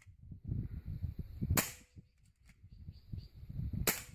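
Two shots from a bullpup air rifle, about two seconds apart: sharp cracks, each followed by a brief faint ringing note.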